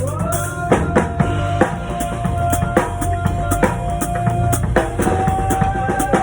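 Drum kit playing a steady beat with kick and snare, under a held pitched note that slides up into place at the start and moves to a slightly higher note about five seconds in.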